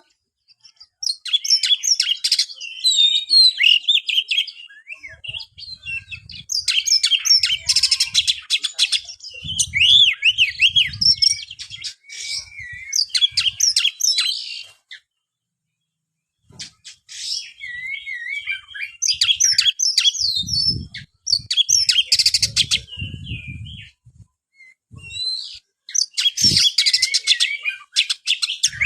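Oriental magpie-robin (kacer) singing a rapid, varied song of whistles, trills and chatter in several long bursts, with two short pauses. Soft low thuds sound under some of the phrases.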